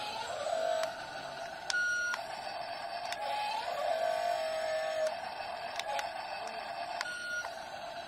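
Small electric gear motors of a toy RC excavator whirring as the boom and bucket dig and lift sand, starting and stopping in short spells with clicks between them.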